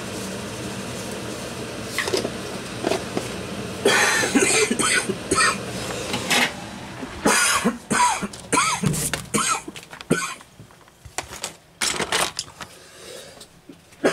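A steady hum for the first few seconds, then a run of irregular knocks, clatter and rustling from handling and moving the camera while carrying a dish to a table.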